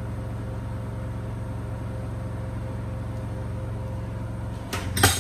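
Steady low mechanical hum, like a kitchen appliance or fan running. Near the end comes a quick cluster of sharp clicks and knocks, the loudest sound here.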